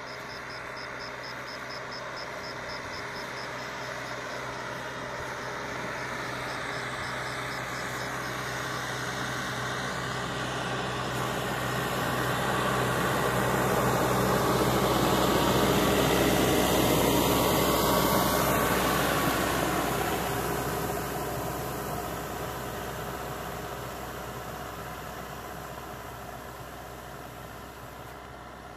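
Farm tractor's diesel engine running steadily as it drives past with a boom sprayer, growing louder to a peak about halfway, its pitch dropping as it passes, then fading as it moves away. A hiss rises while the tractor is close.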